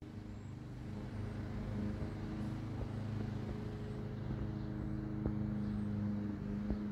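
A steady low engine hum, with a few short crunches from a cat chewing a baby cottontail rabbit.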